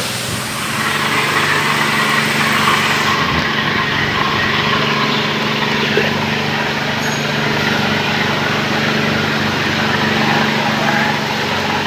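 A machine's motor running steadily: a low, even hum with a hiss over it, the hiss thinning about three seconds in.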